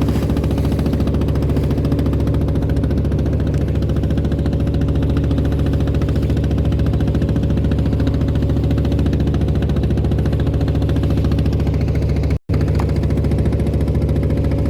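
Klotok boat's inboard engine running steadily at cruising speed, heard from on board, with an even low knocking beat. The sound cuts out for an instant once, near the end.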